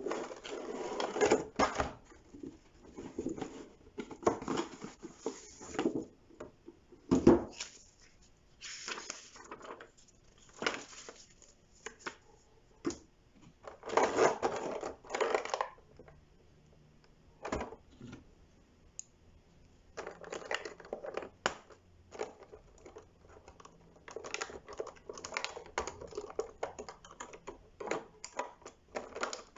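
A plastic toy figure and its packaging being handled: irregular rustling, taps and clicks, with a quieter stretch in the middle and a run of quick small clicks near the end.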